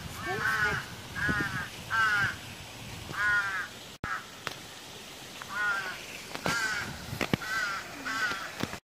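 Crows cawing, a string of short harsh caws roughly one every half second to a second, with a brief gap about four seconds in.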